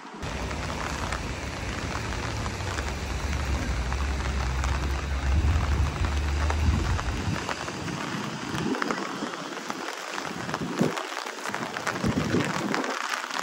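Rain falling, with many sharp drop ticks close by. A low rumble runs under it for the first half and stops abruptly about seven seconds in.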